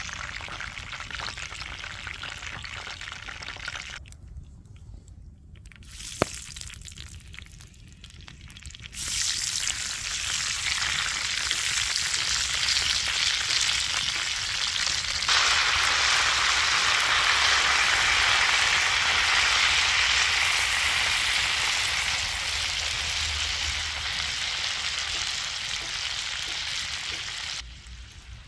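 Potato wedges frying in a pan of hot oil, a loud steady sizzle. The oil hisses lightly at first, then a quieter stretch has one sharp click; the sizzle starts strongly about nine seconds in, grows louder around halfway, and drops away just before the end.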